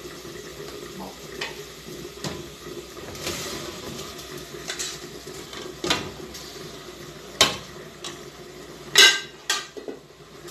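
Aluminium cookware clanking as food is tipped from one pan into a pot on a gas stove and stirred with a wooden spoon, over a low sizzle from the hot pot. Scattered knocks and scrapes, the loudest a quick cluster of clanks near the end.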